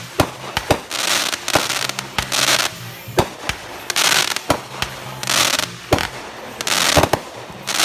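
Aerial fireworks going off in quick succession: a rapid series of sharp pops from shells launching and bursting, several followed by a brief crackling hiss.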